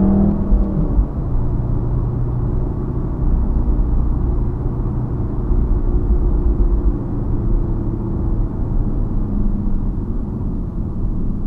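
Mk7 VW Golf R's turbocharged 2.0-litre four-cylinder engine and exhaust heard on the move: the engine note falls away in the first second as the revs drop, then settles into a steady low drone with road rumble.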